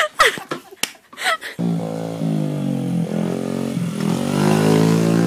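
A few knocks and short bits of voice, then, starting abruptly about a second and a half in, a minibike's small engine running at a steady pitch that rises a little and falls back.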